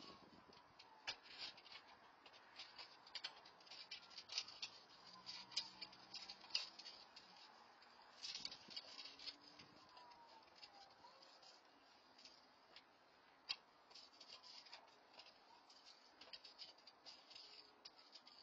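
Faint, irregular clicking and rustling from someone rummaging inside a parked car through its open door, heard at a distance through a security camera's microphone. A few faint short falling tones sound now and then.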